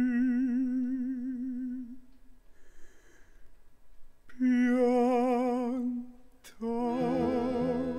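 Baritone singing voice holding long notes with a steady vibrato, nearly unaccompanied, with a quiet pause of about two seconds between them. Near the end a third note begins and instruments come in with low notes beneath it.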